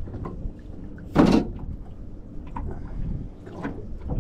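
A single short clatter on the boat about a second in, over a low steady rumble of wind and water.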